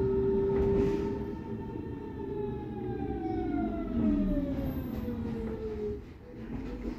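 Berlin S-Bahn class 482 electric train's traction drive whining and falling steadily in pitch as the train brakes to a stop, over the rumble of the wheels. The whine dies away about six seconds in as the train comes to a standstill.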